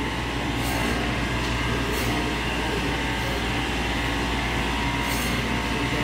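Steady low hum of refrigeration machinery, with a few faint, steady whining tones above it.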